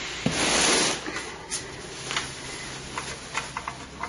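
Computer parts and packaging being handled: a short rustling hiss near the start, then a few light clicks and taps.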